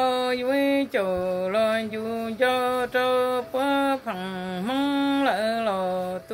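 A woman singing unaccompanied in a chanting style: long held notes that move between two pitches with slow bends, in short phrases with brief breaths between them.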